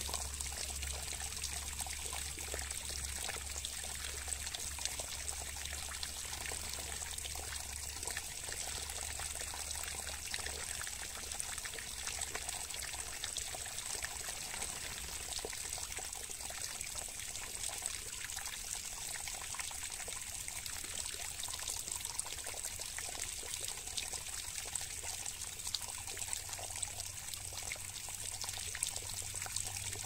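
Water pouring and trickling in a steady stream with fine spattering drops, laid on as a bath for a caged blue-crowned hanging parrot.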